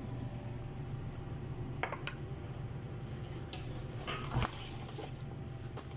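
Steady low hum with a few faint clicks and knocks of objects handled on a workbench, the sharpest a little after four seconds in.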